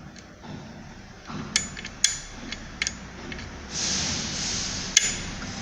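Sharp metal clicks from the kick-start pedal's ratchet mechanism on a Suzuki Burgman AN 125 being worked by hand with its CVT cover off. A hissing rush lasts about a second past the middle.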